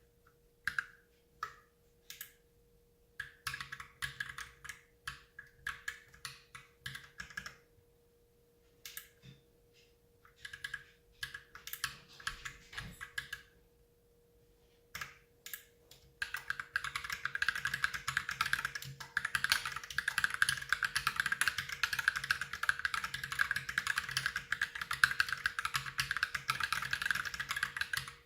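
Mechanical keyboard typing on an Ultimate Hacking Keyboard with lubed Holy Panda tactile switches. Keystrokes come in short bursts with pauses for about the first half, then become fast, continuous typing.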